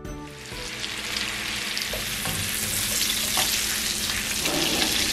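Halved boiled potatoes frying in butter and oil in a nonstick pan, sizzling steadily, while a silicone spatula stirs them and scrapes the pan. The sizzle swells over the first second as they are turned over the raised heat.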